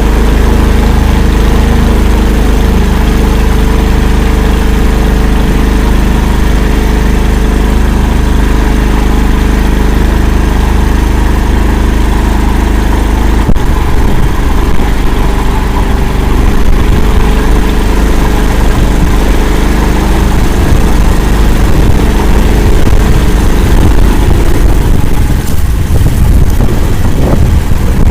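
Engine of the Akula all-terrain vehicle running loudly and steadily. About halfway through, the sound changes abruptly to a rougher, uneven rumble.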